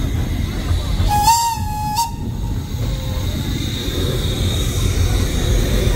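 Narrow-gauge steam locomotive's whistle sounding one short blast, about a second long, over the steady rumble of the train running.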